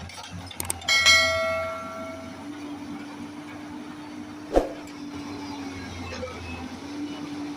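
A heavy machine's engine running steadily, with a loud ringing metal clang about a second in and a single sharp knock a few seconds later.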